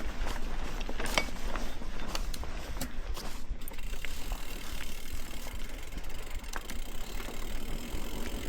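Mountain bike's rear freehub ratcheting while coasting, with scattered clicks and knocks from the tyres and bike going over the rough trail, over a steady low rumble.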